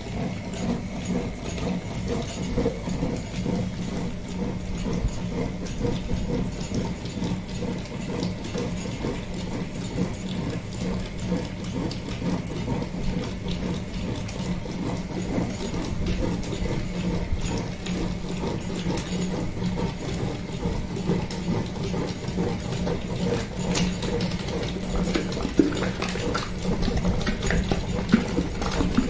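Electric stone wet grinder running with a steady hum, its steel drum turning under the stone roller as it grinds thick ripe red chilli and tamarind chutney paste. A few sharper knocks near the end.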